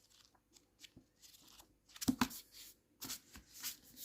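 Pages of a manga volume turned and flipped by hand: a series of short papery rustles, loudest about two seconds in and again near the end.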